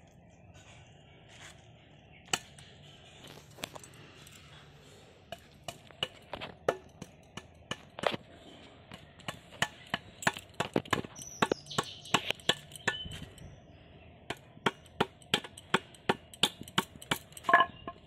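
Scales being scraped off a whole bhetki (barramundi) drawn along the edge of a bonti blade: sharp clicks and scrapes, sparse at first, then several a second from about five seconds in.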